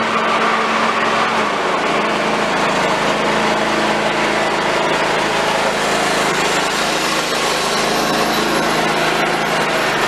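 Riding lawn mower's small gasoline engine running steadily at a constant speed.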